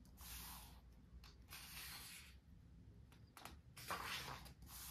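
Soft rustling of glossy photobook pages under the hands, in three brief swells.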